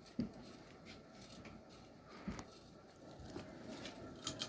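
Evergo 42-inch ceiling fan running on high, a faint steady whir with its scratchy bearings. A few light clicks near the end.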